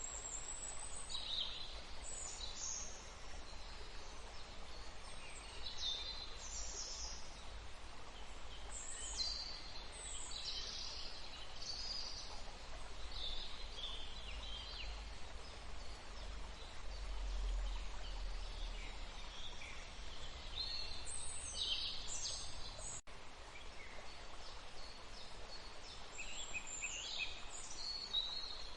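Steady wash of flowing water with many small birds chirping and calling over it, in short high calls scattered throughout. A low rumble lies underneath.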